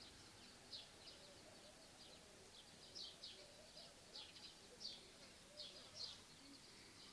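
Faint outdoor ambience with small birds chirping: short, high chirps repeating at irregular intervals.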